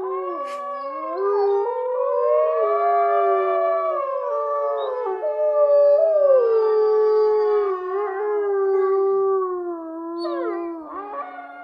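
A pack of wolves howling in chorus: several long howls at different pitches overlap and slowly slide up and down, with a quick swooping call near the end.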